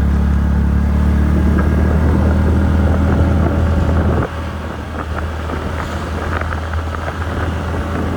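TVS Ntorq 125 scooter's single-cylinder engine running steadily on the move. About four seconds in its sound drops suddenly to a quieter note and then carries on at that lower level.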